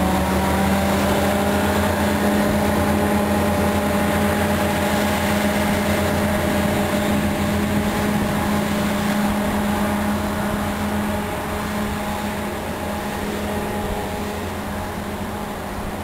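Diesel locomotive engine running steadily under load as it hauls a train past and away, with a steady low hum and higher tones above it, slowly fading over the last several seconds.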